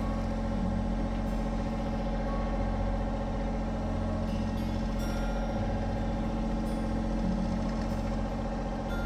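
Fishing boat's engine running steadily, an even hum.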